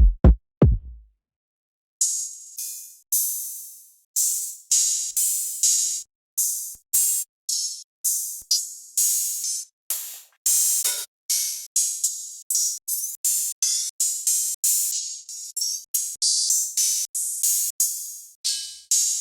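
Trap drum-kit one-shot samples played one after another. A few low 808-style bass hits end in the first second, then after a short pause comes a steady run of separate hi-hat and cymbal-type hits, about two a second, some short and some ringing longer.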